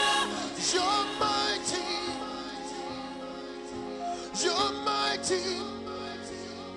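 Gospel worship music with held chords under a singer's voice. The singer's phrases come near the start and again about four seconds in.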